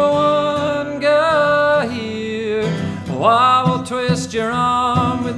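A man singing long, held notes that slide up into pitch, accompanied by an acoustic guitar.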